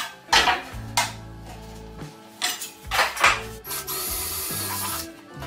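Cordless drill boring a hole into a pine board for about a second and a half near the end, after several short scraping strokes, over background music.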